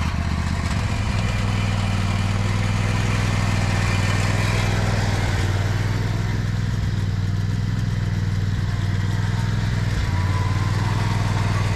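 John Deere riding lawn mower engine running steadily, a low, even hum.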